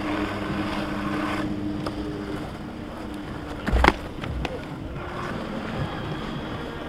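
A windmill softball pitch delivered on a dirt field, with one sharp thud as it is thrown about four seconds in and a smaller knock just after. Wind noise on the microphone, and a steady low hum that fades out in the first couple of seconds.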